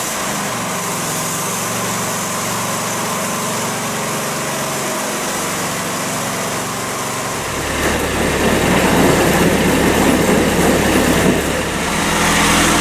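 Cub Cadet zero-turn mower's engine running as it drives off, growing louder and rougher about two-thirds of the way in. Near the end it gives way to a different engine, a Kubota compact tractor running.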